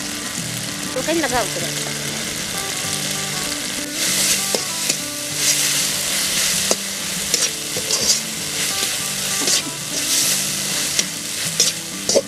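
A fish and thankuni (pennywort) leaf mixture sizzling as it fries in a metal wok. From about four seconds in, a metal spatula stirs and scrapes against the pan in repeated strokes.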